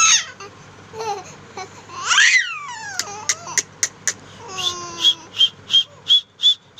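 Baby squealing and babbling: a sharp rising squeal, a loud high squeal that slides down in pitch, then a run of short high-pitched squeaks about three a second near the end.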